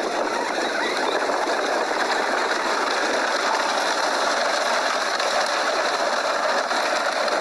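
Steady rattling mechanical noise from a small red Honda being ridden over a dirt path.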